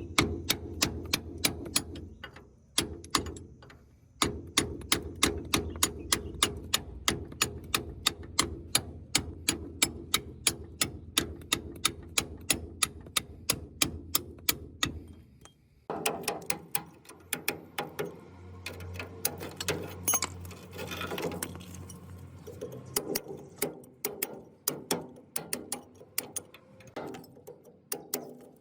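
Repeated sharp metal-on-metal hammer strikes on the gearbox, an even run of about two or three blows a second. After a break about halfway through, the strikes go on more slowly and irregularly.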